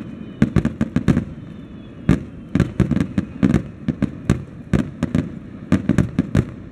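Aerial fireworks display in full barrage: shells bursting in quick succession, many sharp booms a second, with a brief lull about a second and a half in.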